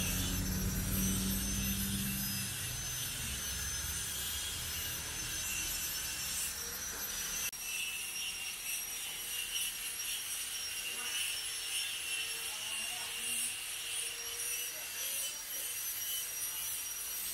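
Workshop machinery noise: a steady high-pitched whine over a rasping haze. A low hum drops away about two and a half seconds in.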